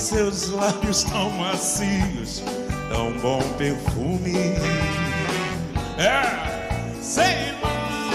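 Live big band playing: horn section, electric guitars, drum kit and percussion together, with drum strikes throughout.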